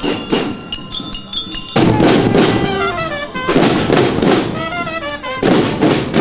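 Student marching band drums beating a parade march. For the first couple of seconds, struck bell-like metal notes ring over the drum strokes. Then comes louder, denser drumming with rapid strokes in repeated bursts.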